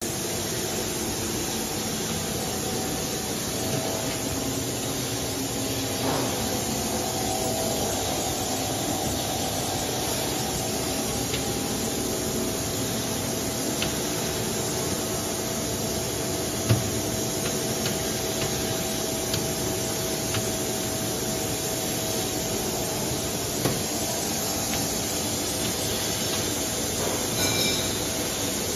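Plastic straw extrusion machine running: a steady mechanical hum and whirr from the extruder's geared drive motor. A faint steady whine comes and goes, and a couple of sharp knocks stand out, the loudest about two-thirds of the way through.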